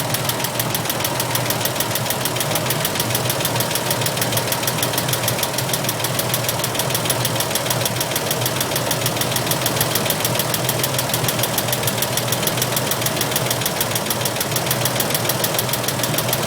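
Toyota FJ40's 2F inline-six petrol engine running steadily with a fast, even ticking over the engine note. The cause of the tick is unknown to the owner.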